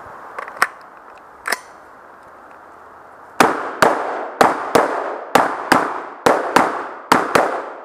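A rapid string of about ten rifle shots fired over roughly four seconds, each with a short ringing echo, starting about three and a half seconds in. A couple of fainter sharp cracks come in the first two seconds.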